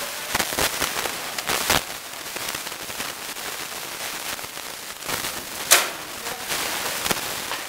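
Sharp cracks of rattan sword blows striking armour and shields in armoured heavy combat, a scattered series of them with the loudest about three-quarters of the way through.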